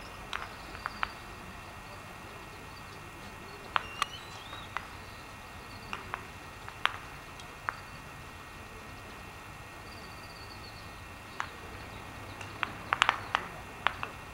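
Outdoor ambience: a steady hiss with irregular sharp clicks and taps, several in quick succession near the end, and a few faint high chirps.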